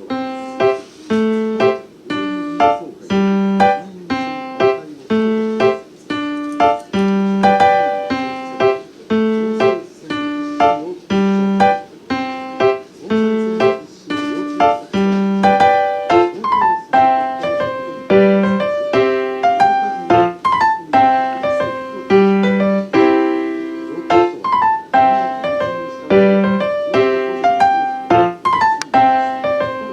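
Piano music playing a steady run of single notes, about two a second.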